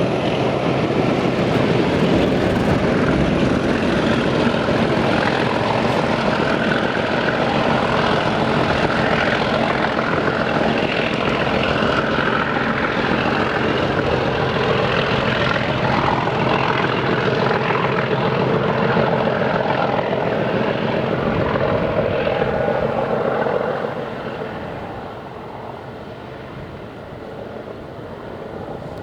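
Mainline diesel locomotive engine working hard under load, a loud continuous thrash that drops away sharply near the end as the locomotive moves off.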